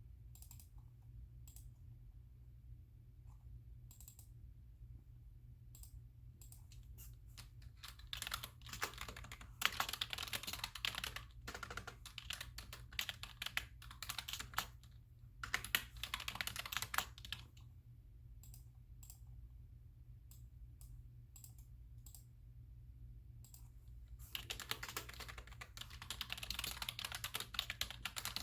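Typing on a computer keyboard in bursts of rapid keystrokes, with scattered single clicks in the pauses, over a steady low hum. The first few seconds hold only sparse clicks; fast typing starts about eight seconds in and comes back in several runs.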